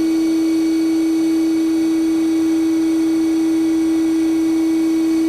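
Hydraulic pump of a Harig 612 surface grinder running after start-up, a loud steady whine on one pitch, with the spindle turning quietly beneath it.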